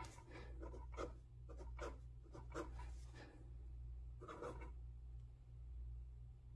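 Pilot Juice gel pen scratching softly on lined notebook paper as numbers are written: a quick run of short strokes, a pause, then a few more strokes about four and a half seconds in, over a low steady hum.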